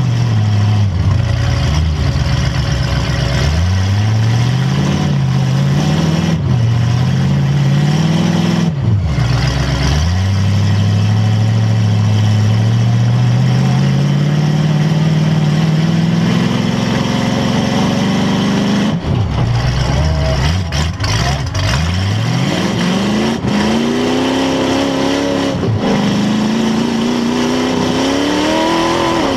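Demolition derby car's engine revving hard, its pitch climbing and dropping again and again, with one long steady climb about a third of the way in and quick revs near the end.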